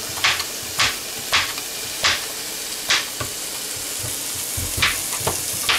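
A kitchen knife chopping red potatoes on a plastic cutting board: about eight sharp strikes at uneven intervals, with a pause in the middle. Under them, the steady sizzle of chicken pieces frying in a pan.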